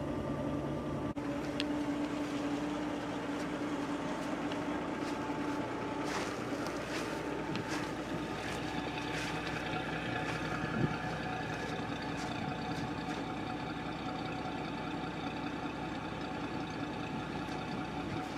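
Ford Falcon engine idling steadily, its exhaust running quietly through a newly fitted Walker muffler. One light knock near the middle.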